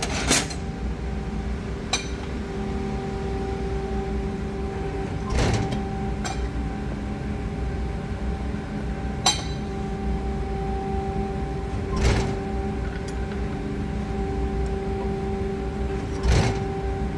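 Press brake running with a steady hum as 12-gauge steel is bent in 3D-printed PLA punch-and-die tooling, with a sharp clank or a short louder surge every few seconds as the ram strokes and the metal is formed and handled.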